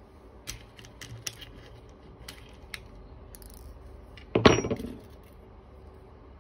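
Scattered light clicks and taps of a hand tool and small parts, then, about four and a half seconds in, a louder clatter of a small metal piece on a hard surface with a short metallic ring.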